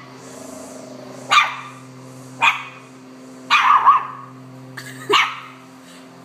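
Pomeranian puppy barking: about five short, sharp barks spaced a second or so apart, with a quick double bark about three and a half seconds in. It is alarm barking at the unfamiliar sound of a lawn mower.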